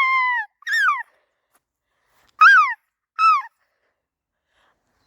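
Gulls calling: four short yelping calls, each falling in pitch. They come in two pairs, the first call a little longer than the rest.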